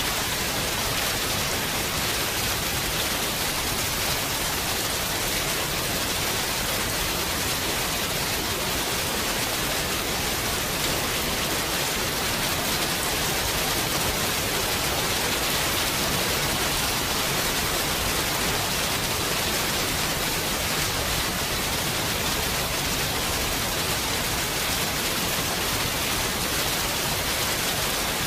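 Steady rain, an even hiss with no single drops standing out.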